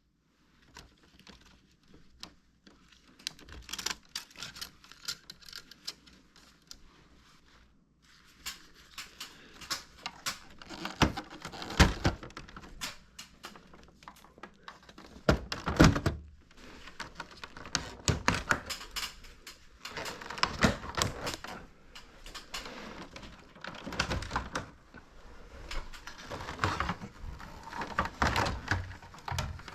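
Irregular clicks, knocks and rattles of plastic parts being handled and unclipped while a Toshiba wall-mounted air conditioner is taken apart. Sparse at first, busier from about a third of the way in, with a couple of louder thumps.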